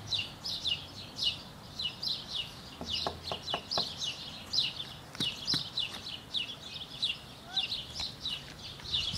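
Steady, rapid, high-pitched chirping, short falling chirps repeating about three times a second without a break. A few faint clicks come about three seconds in.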